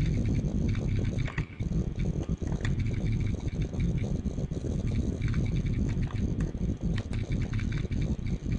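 Uneven low rumbling noise on a computer microphone, with faint scattered clicks.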